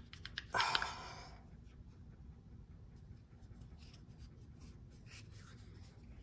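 Metal parts of a two-stage engine oil pump being handled and worked by hand: a short rasping scrape about half a second in, then faint rubbing and light clicks.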